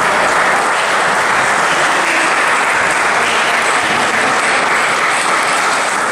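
Steady, applause-like clatter of many table tennis balls being struck and bouncing on the many tables of a busy tournament hall, merging into one continuous noise.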